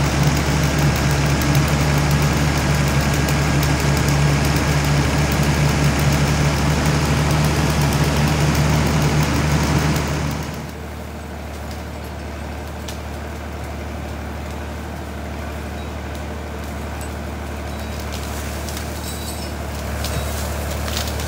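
Heavy diesel engine of a log-handling machine running steadily and loud close by. About ten seconds in it drops abruptly to a quieter, more distant steady engine hum, with a few light clicks near the end.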